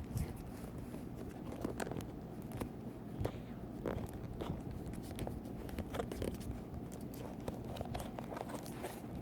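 Leather belt and ammunition pouches being handled and slid along each other: scattered small clicks, creaks and rubbing.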